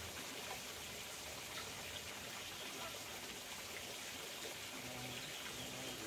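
Water trickling and running steadily, a continuous even splash.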